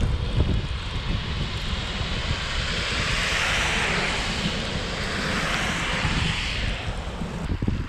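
Wind buffeting the microphone of a bike-mounted camera while cycling, with a passing car's tyres hissing on the wet road, swelling in the middle and fading out near the end.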